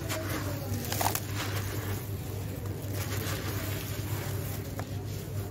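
Dry sand-cement chunk being crushed and crumbled by hand, a gritty crunching with grit and powder pattering into a plastic tub and a sharper crunch about a second in. A steady low hum runs underneath.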